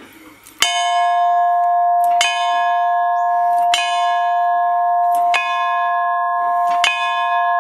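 Large hanging temple bell struck by hand with its clapper, five strikes about a second and a half apart, each ringing on into the next.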